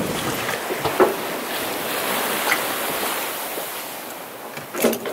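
Sailing yacht under way at sea: water rushing and waves washing past the hull, with wind noise. It eases off toward the end, with a knock about a second in and another near the end.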